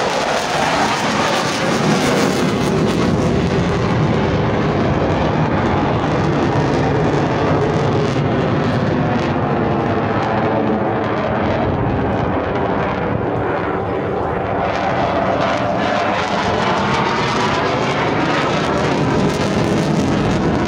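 Military jet aircraft flying over at an air show: loud, steady jet engine noise whose pitch slowly sweeps up and down as the aircraft pass.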